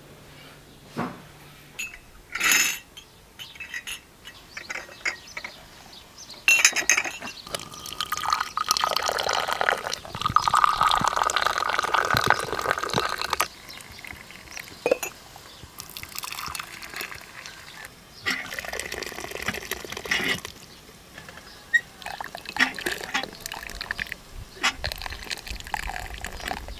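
Tea poured from a teapot into glass tea cups, one cup after another, each pour running several seconds, with a few light clinks of glass near the end.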